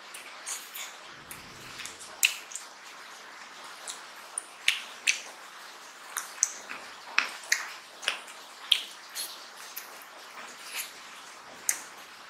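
Close-miked eating sounds: a person chewing mutton curry and rice eaten by hand, heard as a string of sharp, wet mouth clicks and smacks at irregular intervals.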